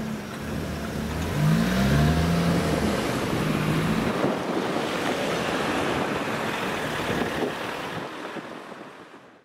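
Road traffic moving off over the level crossing once the barriers lift: car engines rising in pitch as they accelerate, then tyre noise rushing past. The sound fades out near the end.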